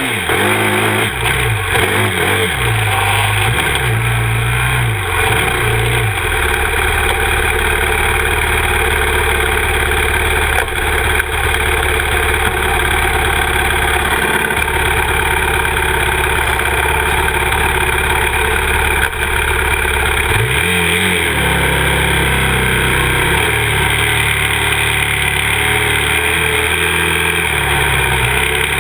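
A 2011 Yamaha YFZ 450R SE quad's single-cylinder four-stroke engine running under throttle, heard up close. Its pitch steps up and down with throttle and gear changes, with a brief drop about twenty seconds in.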